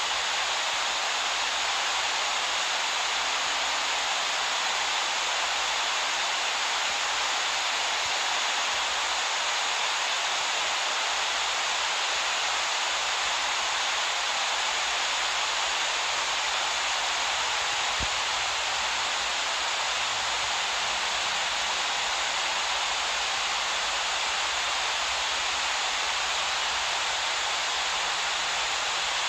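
Steady rush of whitewater rapids and a waterfall.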